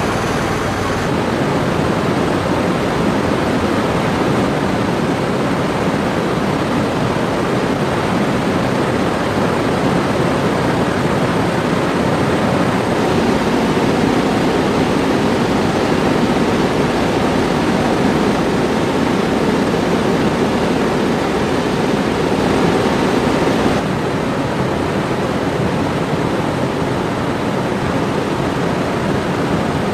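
Steady rush of wind and engine noise inside a military transport aircraft's cabin in flight with the rear ramp open.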